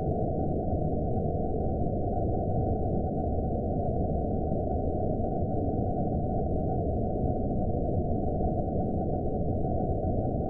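Horror-film ambience sound effect: a steady, dark, low rumbling drone of muffled noise with a faint thin high tone held above it, unchanging throughout.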